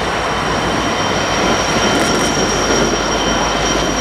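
Diesel-hauled freight train approaching, locomotive engines running and wheels rolling on the rails. A steady high-pitched squeal runs throughout.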